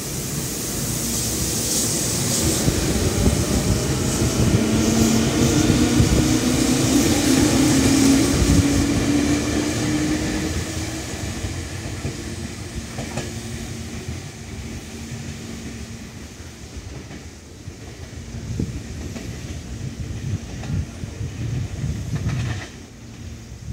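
Meitetsu 6500 series electric train pulling away: the motors whine and rise steadily in pitch as it accelerates, with wheels clicking over rail joints. The sound then fades as the train draws off into the distance.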